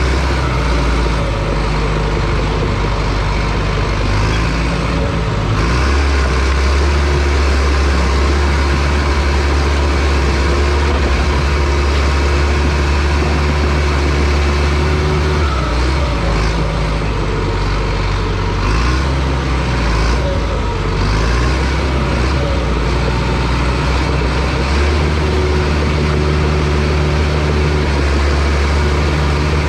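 Bulldozer's diesel engine running loud and steady while it pushes logs, its note stepping up about five seconds in and shifting again near the end as the load changes.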